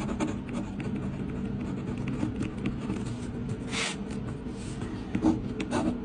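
Ballpoint pen scratching on paper in short strokes as marks are made on a test sheet, with one louder rustle a little before the middle.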